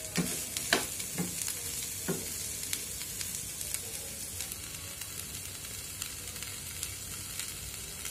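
Stir-fried vegetables sizzling steadily in oil in a frying pan. Four sharp knocks of a wooden spatula against the pan in the first two seconds, then only the sizzle.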